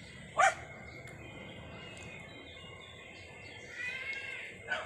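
Animal calls: one loud, short falling cry about half a second in, then a longer arching call near the end, over faint outdoor background noise.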